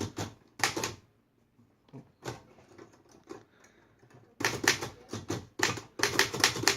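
1935 Royal KMM manual typewriter being typed on: two type strikes, a pause with a few light clicks, then a quick run of keystrokes from about four and a half seconds in.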